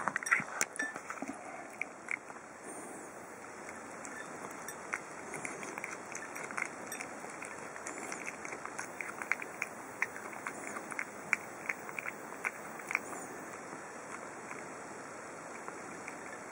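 A cat eating raw tuna from a saucer: irregular wet chewing and smacking clicks, thickest in the middle, over a steady faint hiss.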